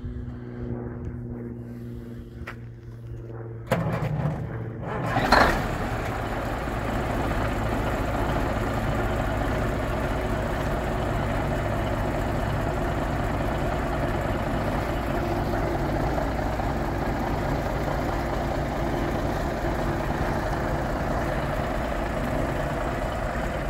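Diesel engine of a 1978 Autocar dump truck, a 400 Cummins, running. About four seconds in it suddenly gets louder, a brief hiss follows a second later, and then it runs steadily.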